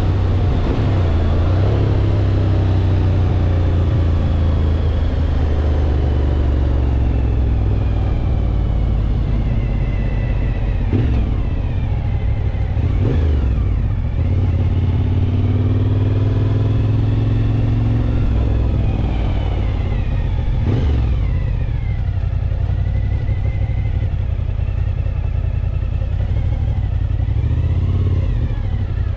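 Motorcycle engine heard from the rider's seat while riding, its pitch falling and rising several times as the bike slows and speeds up, over a heavy steady rumble of wind and road noise.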